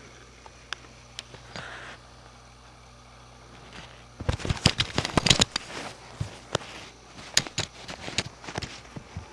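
A kitten batting and biting at a camcorder's lens cap right against the microphone: a few faint clicks, then from about four seconds in a quick run of loud, sharp clicks and knocks, followed by scattered taps.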